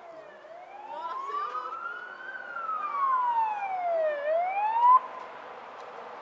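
Fire engine's siren wailing in slow rising and falling sweeps as the truck approaches, growing louder. It cuts off suddenly about five seconds in, leaving the steady noise of the oncoming vehicle.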